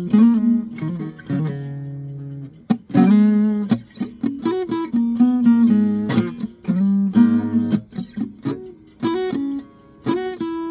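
A guitar being played: chords picked and strummed, each note ringing out, with a short break a little over two seconds in.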